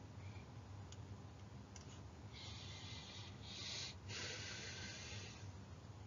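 A person's breathing close to the microphone: two soft, hissing breaths starting a little over two seconds in, one after the other, over a faint low room hum.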